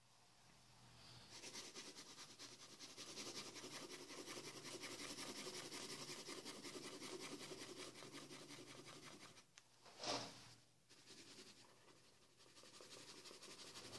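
Faint scratching of a felt-tip marker on sketchbook paper, in quick back-and-forth coloring strokes. The strokes fade after about eight seconds, and there is one short, louder scrape about ten seconds in.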